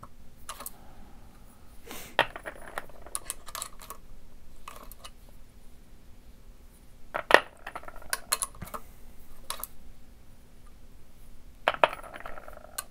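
Brass .30-06 rifle cases clinking as they are lifted from and set back into a plastic loading block, with the clicks of a hand priming tool seating large rifle primers. The clinks come irregularly, the loudest about seven seconds in.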